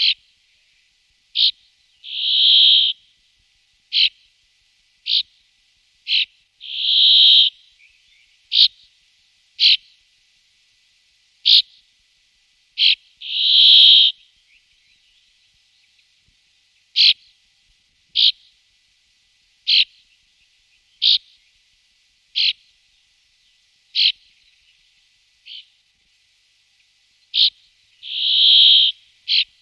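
Brambling calling: short sharp notes about once a second, broken four times by a longer, harsh, drawn-out note of nearly a second.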